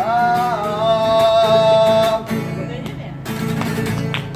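A singer holds one long note over strummed acoustic guitar for about two seconds; then the guitar plays on alone.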